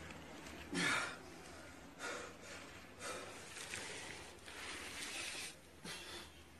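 A man's short grunts and gasps of effort as he strains to lift something heavy, the loudest about a second in, followed by several quieter ones.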